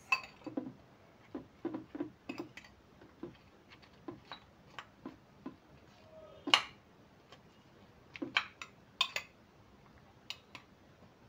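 A utensil clinking and knocking against a dish while kachumbari (chopped onion and tomato) is mixed. The knocks come irregularly, with the sharpest about six and a half seconds in and a few close together around eight to nine seconds.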